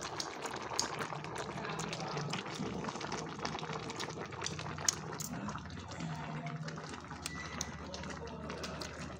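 Hot pot broth bubbling at a boil, with many small scattered pops and crackles.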